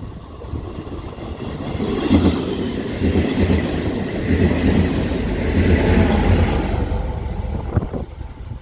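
Diesel train passing by: its rumble and wheel noise swell about two seconds in, hold loud for several seconds with repeated low thumps, and fade away near the end.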